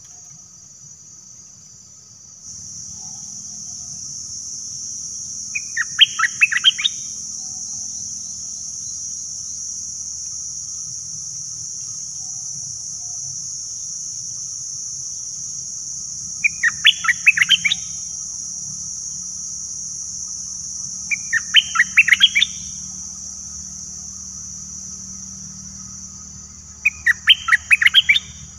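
Stripe-throated bulbul singing: four short bursts of quick, chattering notes, several seconds apart. A steady high-pitched hiss runs behind them from a couple of seconds in.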